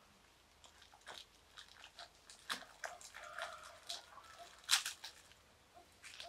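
Irregular crunching and clicking, a dozen or so sharp short sounds at uneven spacing, the loudest about three-quarters of the way through.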